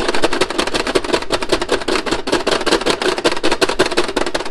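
Pie Face Showdown toy clicking in a rapid, even run as its round counts down before the arm flips.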